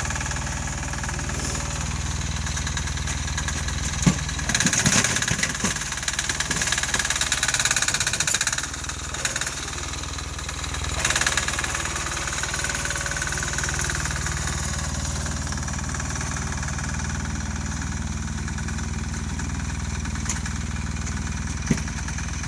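Sears garden tractor's 6 HP single-cylinder air-cooled diesel engine running steadily while plowing snow, growing louder and rougher for a few seconds about four seconds in and briefly again near the middle.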